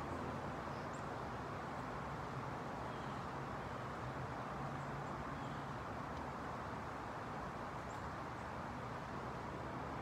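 Steady residential street ambience: a low hum under even background noise, with a few faint, short bird chirps scattered through it.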